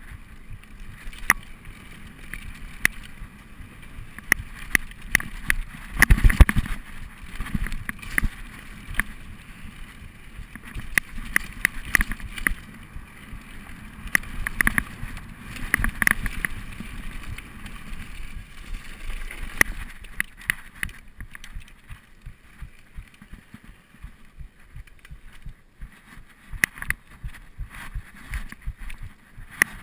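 Mountain bike descending a rough dirt trail: constant rattling and clicking of the bike over roots and bumps, with tyre noise on dirt and dry leaves and wind on the microphone. The heaviest jolts come about six seconds in.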